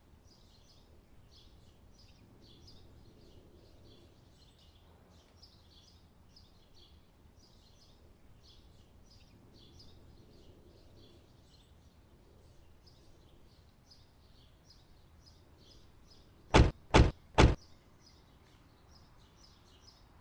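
Faint birdsong, many short high chirps repeating throughout. Near the end, three loud short beeps in quick succession from a digital alarm clock going off.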